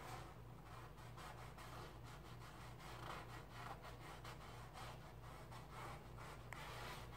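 Faint strokes of a paintbrush rubbing and scratching across canvas, in short irregular strokes, over a steady low hum.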